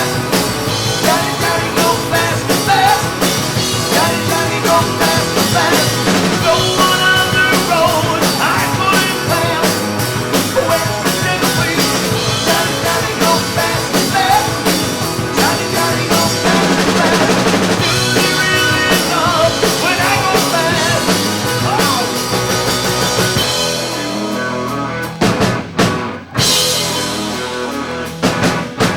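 Live rock band playing a song at rehearsal: drum kit, guitars and a singer. The band breaks off sharply a couple of times near the end.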